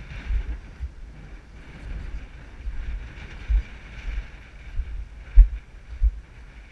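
Wind buffeting the camera microphone in irregular low gusts, the strongest about halfway and near the end, over a steady higher hiss.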